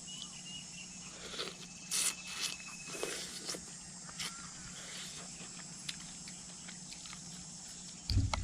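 Scattered small clicks, taps and crunches of eating from a bowl of beef noodles with pork crackling, over a faint steady background of insects, with a short high trill about two seconds in.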